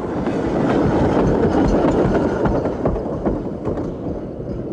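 J94 saddle tank steam locomotive and its train of brake vans running along the track: a dense, steady train noise with scattered clicks, growing louder over the first couple of seconds and easing toward the end.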